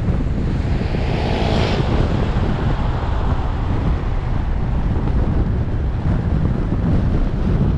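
Wind buffeting the microphone of a moving car, over a steady low road rumble; a brighter hiss swells and fades about a second in.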